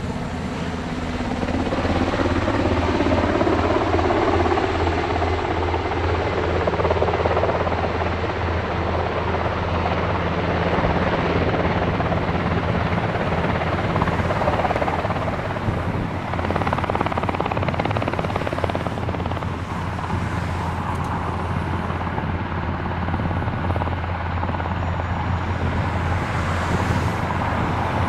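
AS532 Cougar helicopter flying low, its rotor blades beating steadily over the noise of its twin turboshaft engines.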